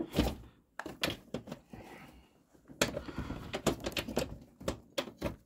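A door lock and latch being worked open by hand: a run of irregular clicks, rattles and knocks, with a short pause about two seconds in.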